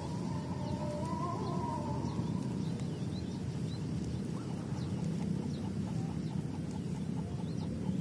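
A chicken clucking in wavering calls during the first two seconds, then faint short chirps, over a steady low outdoor rumble.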